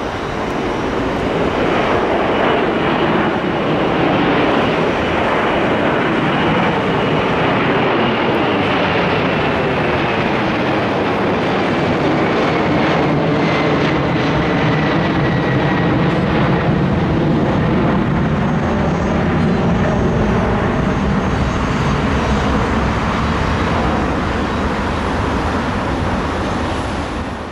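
Boeing 747 freighter's four jet engines at climb power as it passes low overhead after takeoff: loud, steady jet noise with a thin whine that slowly falls in pitch as the aircraft goes by.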